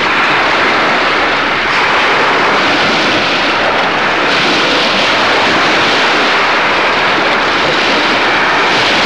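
Loud, steady rushing of choppy water and surf, with no pitch and no breaks.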